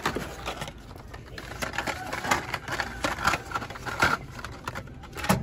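Carded Hot Wheels cars being handled: the cardboard backing cards rustle and the plastic blisters click against each other as they are pulled from a cardboard shipping case and hung on metal peg hooks. The sound is an irregular series of light clicks and rustles.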